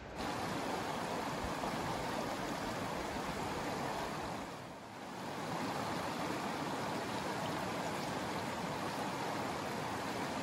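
River water running over a rocky bed: a steady rushing wash that dips briefly about halfway through.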